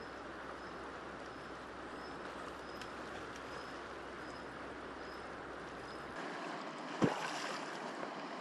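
River water rushing steadily, with faint high ticks about twice a second and one sharp knock about seven seconds in.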